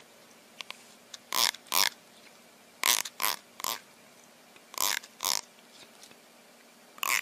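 An animal making short, breathy sounds, in groups of two or three about every one and a half to two seconds.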